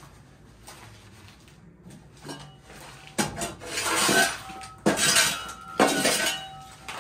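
Metal clattering and scraping off to the side, starting about three seconds in as a run of four or five loud clanks with brief metallic ringing.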